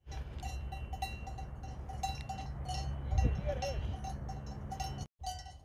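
Bells on grazing Valais Blacknose sheep clinking irregularly over a low wind rumble on the microphone. One brief call, about three seconds in, is the loudest moment.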